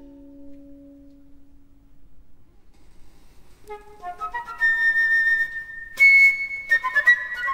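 Solo flute playing a string of short high notes that come in a few seconds in and grow louder and busier, with a sharp breathy attack about two-thirds of the way through. A low held note from the ensemble fades out at the start.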